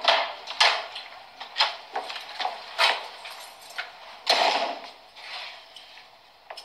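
A run of sharp clicks and knocks, about two a second, with a longer scraping sound about four seconds in, fading towards the end.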